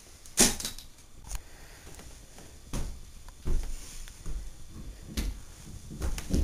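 A few scattered soft thumps and light knocks, roughly one a second, with no voices.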